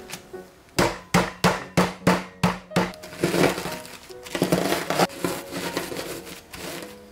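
Lotus cookies in a zip-top plastic bag being crushed with a wooden rolling pin: about seven sharp whacks in quick succession, then the pin rolled back and forth over the broken pieces. Background music plays throughout.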